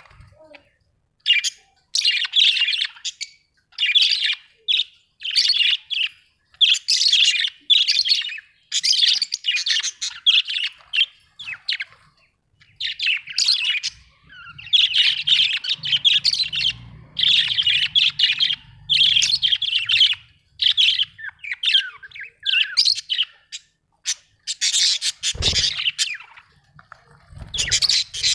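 Budgerigars chirping and chattering in quick high bursts, one run after another with short pauses between. A short low thump comes near the end.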